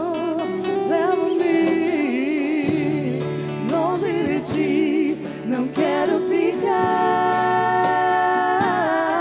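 Live acoustic worship music: a singer holding long notes with vibrato, wordless or hard to make out, over acoustic guitar accompaniment.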